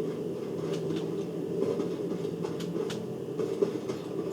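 A steady mechanical hum with a few scattered light clicks.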